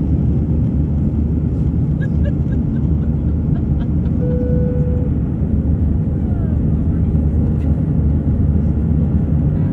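Steady, dense low rumble of an Airbus A319 on its takeoff run.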